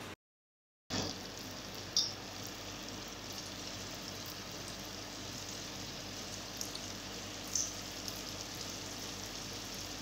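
Cornflour-coated potato sticks deep-frying in hot oil in a kadai: a steady sizzle that starts about a second in, with a couple of brief louder crackles as more pieces go into the oil.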